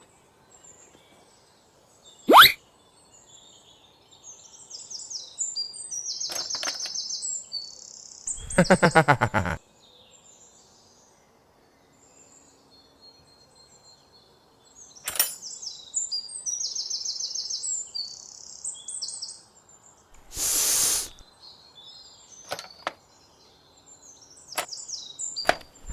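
Small birds chirping in repeated high trills, broken by a few short, louder unidentified sounds: a quick rising sweep about two seconds in, a pitched sound about a second long that falls in pitch around nine seconds, and a brief burst of noise around twenty-one seconds.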